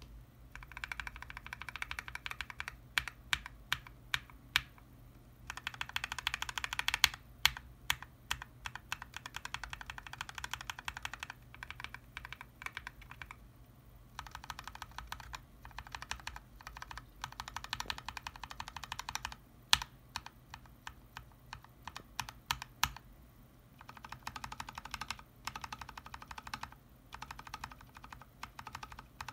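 Mechanical keyboard with freshly lubed Gateron Ink Yellow linear switches, its keys pressed in rapid runs of quick clacks lasting a few seconds each, with short pauses and a few single sharper strokes between the runs.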